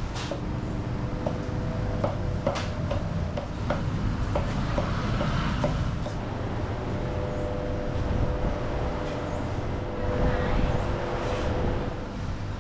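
Street traffic noise: a steady low rumble with a faint engine hum, and a few short clicks and knocks in the first few seconds.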